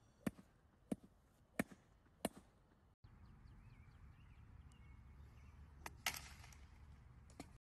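Four sharp knocks about two-thirds of a second apart over faint outdoor ambience. Near the end, a golf club strikes the ball with a click, followed at once by a brief rushing noise, the loudest moment of the shot.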